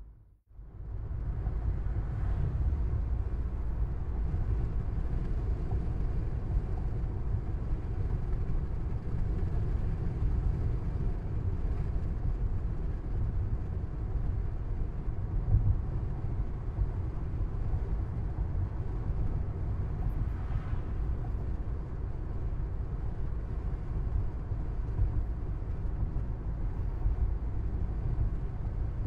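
Steady low rumble of a car driving along the road, heard from inside the cabin. The sound cuts out for a moment just after the start, then runs on evenly.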